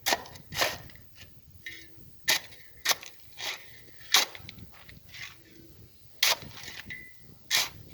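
Steel pry bar striking and chipping into compacted recycled asphalt to loosen it, about eight sharp strikes at uneven intervals.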